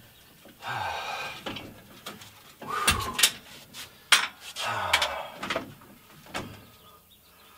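Steel parts of a Harbor Freight drywall lift being handled during setup: metal scraping twice as parts slide against each other, with sharp metal clanks and clicks between.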